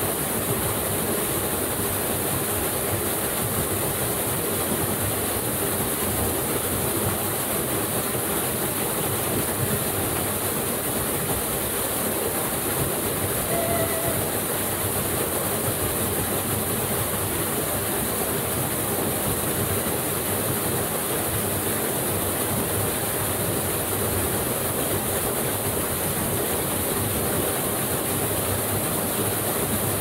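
Steady, unbroken rush of a waterfall splashing into a creek pool.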